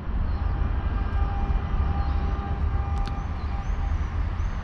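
A steady, uneven low rumble outdoors, with a faint thin tone that comes and goes, a few high chirps, and a brief click about three seconds in.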